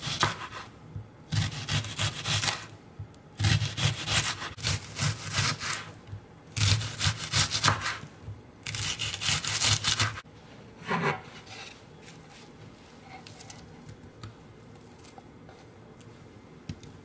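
Knife slicing a whole onion into rings on a wooden cutting board: crisp crunching cuts in about five runs of quick sawing strokes, the blade meeting the board.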